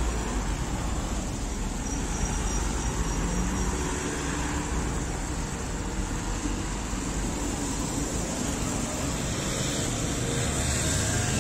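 Steady street background noise: a low rumble with a hiss over it.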